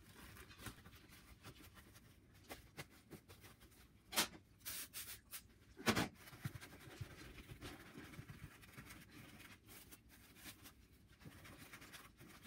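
Plastic wrap rustling and crinkling faintly as hands press sticky rice crispy treat mixture into a metal baking pan, with two sharper clicks about four and six seconds in.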